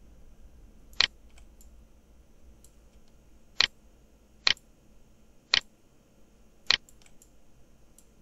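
Computer mouse button clicks: five single, sharp clicks at uneven intervals.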